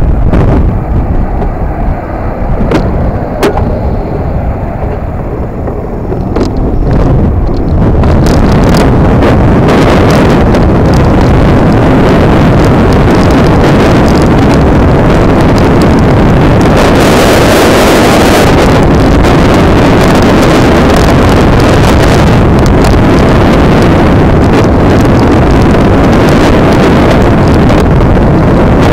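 Wind buffeting the microphone of a moving electric scooter, a dense rushing noise that builds about eight seconds in to a loud, steady roar.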